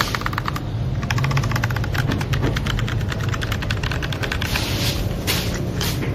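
Fast typing on a mechanical keyboard fitted with DA x AJAZZ Cocoon 50g tactile switches: a dense, rapid run of key clicks with a few short pauses, over a low steady hum.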